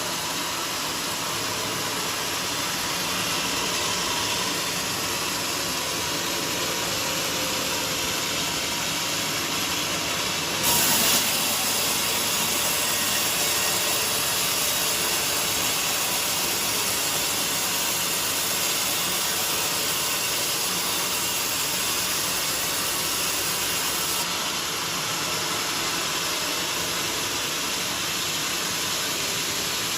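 Band sawmill running, a steady hissing noise as the blade saws through a teak log, briefly louder about eleven seconds in.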